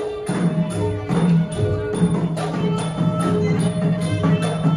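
Southern Thai Nora ensemble playing: a quick, even beat of drums and small ringing cymbals under held pitched notes.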